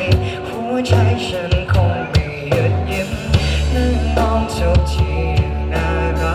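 Pop-rock band music: a drum kit keeps a steady beat under a sustained bass line and a melody.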